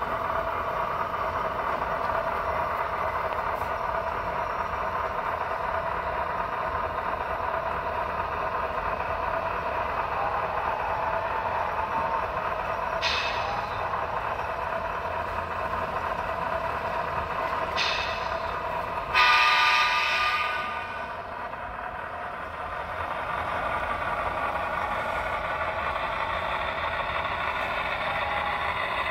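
HO scale model diesel locomotive's sound-system horn: a short toot about halfway through, another a few seconds later, then straight after it a longer, louder blast. A steady running hum underlies it.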